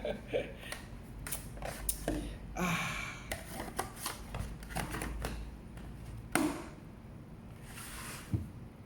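Hands handling a box and its packaging: scattered clicks, taps and rustles, with one sharper knock about six and a half seconds in.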